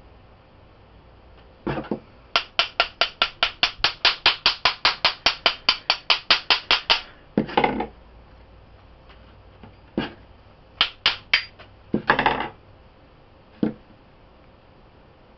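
A metal bath bomb mold being tapped in a fast, even run of sharp taps, about five a second for several seconds, to loosen the packed fizzy mixture and release the ball. Two short scraping noises and a few more scattered taps follow.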